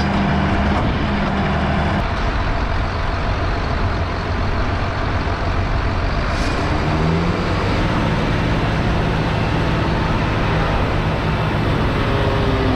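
Farm tractor's diesel engine running steadily, with a slight change in engine speed about seven seconds in.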